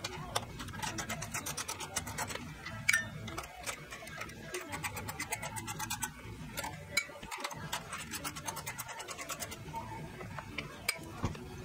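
Socket ratchet clicking in quick runs of strokes while loosening the bolts that hold the carburetor on a small engine, thinning out near the end.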